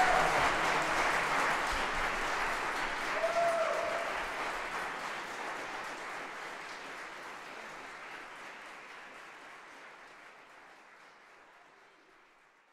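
Audience applauding, fading gradually away to nothing. A short shout from the crowd rises above the clapping about three seconds in.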